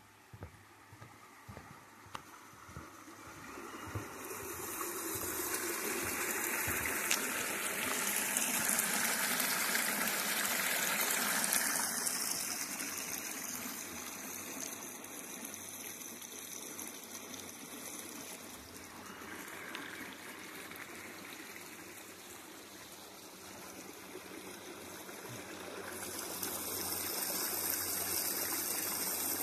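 Stream water running over rocks, a steady rushing that grows louder about four seconds in, eases in the middle and swells again near the end.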